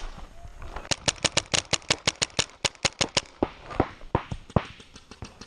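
Paintball markers firing: a fast stream of sharp shots, about nine a second, for a couple of seconds, then scattered single shots.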